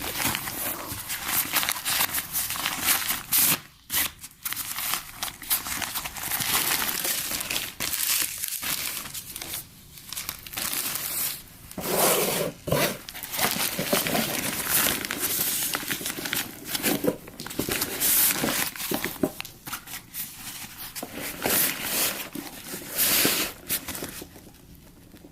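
Packaging crinkling and rustling almost without a break as it is handled and unwrapped, with some tearing. It goes briefly quiet twice and fades near the end.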